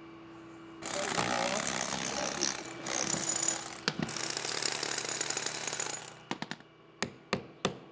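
A power tool hammering rapidly against the steel axle end for about five seconds, with a couple of brief breaks. Then, near the end, sharp hand-hammer blows on a chisel, about three a second.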